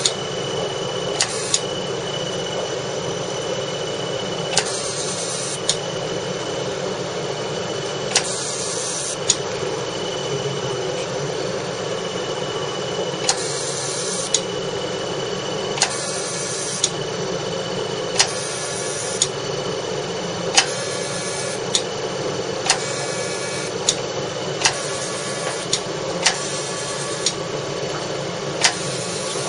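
CO2 fractional laser machine running with a steady hum, cycling through about ten short hissing scan pulses, each starting and ending with a click and repeating every two to three seconds.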